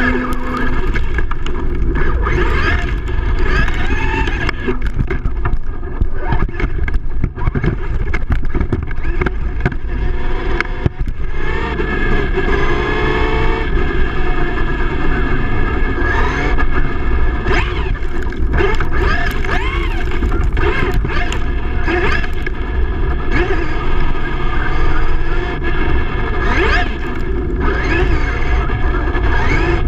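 Electric motor and drivetrain of a Traxxas E-Revo RC truck whining, the pitch repeatedly sweeping up and down as the throttle is worked, heard from a camera mounted on the truck, with heavy wind and tyre rumble.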